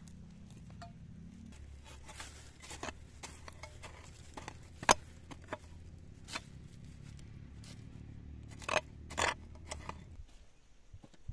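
A small hand hoe digging and scraping into dry, stony soil and tossing it. It makes scattered sharp strikes, the loudest about five seconds in and two close together near the nine-second mark.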